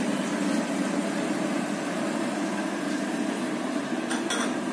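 Onions frying in mustard oil in a lidded kadai on a gas stove: a steady hum with an even hiss above it. A couple of short clicks come near the end.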